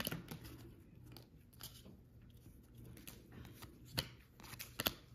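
Stack of trading cards being thumbed through, card edges sliding and flicking with soft scrapes and scattered small clicks, two sharper clicks near the end.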